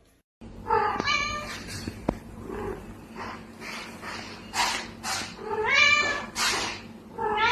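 A cat meowing several times, with loud drawn-out meows about a second in, near six seconds and again at the end, and short breathy noises between them.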